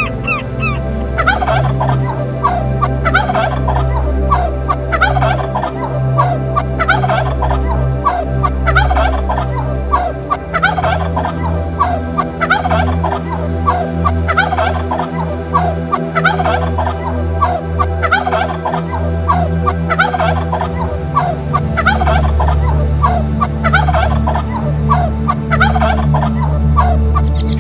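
A bird calling over and over: short calls, each a quick run of notes, about every two seconds.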